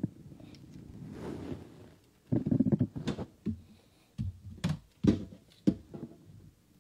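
Handling noise on a phone microphone while earphones are being put in: irregular knocks and thumps with short rubbing sounds, several sharp clicks in the second half.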